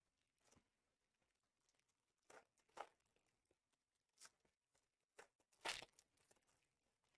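Trading card packs being torn open and their wrappers crinkled, in a series of short rustling tears, the loudest near the end.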